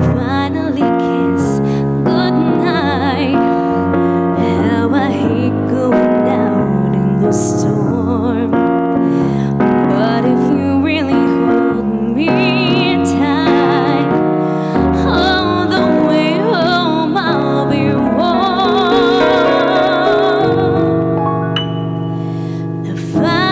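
Woman singing with vibrato over electric keyboard accompaniment played in a piano voice, with a long held note near the end.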